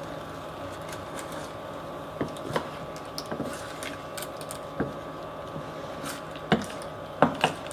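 A utensil pushing spaghetti down into a stainless-steel saucepan of water, giving scattered taps and knocks against the pan, the loudest near the end. A steady hum runs underneath.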